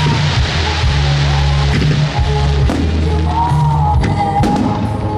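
Loud rock music with a heavy, steady bass line, the soundtrack of a fireworks show set to music. A few sharp firework cracks come near the end.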